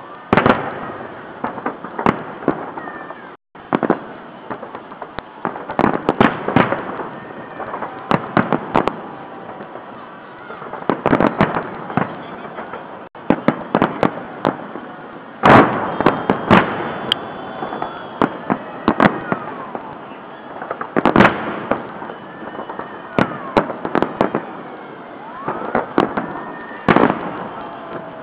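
Festive salute fireworks: shells bursting one after another in quick clusters of sharp bangs and crackles every second or two. The heaviest bangs come a little past the middle and again about three quarters of the way through.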